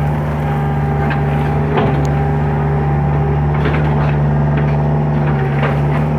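Hitachi hydraulic excavator's diesel engine running steadily, with a few short knocks about two seconds in and again in the second half.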